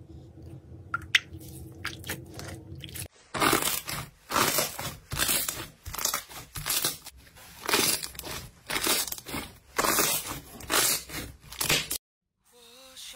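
Thick slime squeezed and pressed by hand, giving a run of loud crackling squishes about one a second, which cuts off suddenly near the end. Before it come a few seconds of softer clicks and swishing as a hand moves in liquid.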